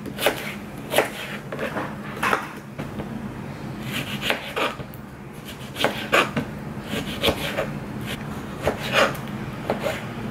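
Kitchen knife cutting an orange into wedges on a plastic cutting board: irregular knocks of the blade hitting the board, over a steady low hum.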